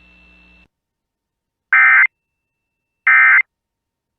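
Emergency Alert System SAME digital data bursts: two short, loud, identical warbling bursts of the end-of-message "NNNN" code, each about a third of a second long and about a second apart, marking the end of the alert test.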